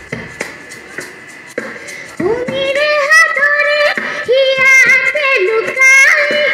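A girl singing into a microphone over a loudspeaker system, her voice coming in about two seconds in with long held notes that bend in pitch. Before that, a quieter stretch with a few soft clicks.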